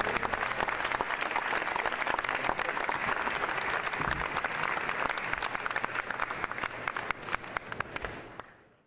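Large crowd applauding, a dense patter of many hands clapping, which fades out near the end.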